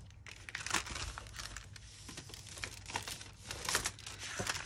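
Large paper envelope rustling and crinkling as it is folded over the edge of a steel ruler, with irregular short crackles of the paper.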